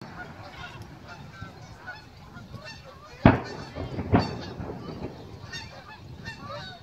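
Fireworks display: two loud aerial shell bursts, sharp bangs about three and four seconds in, over a steady background of many short, high-pitched calls.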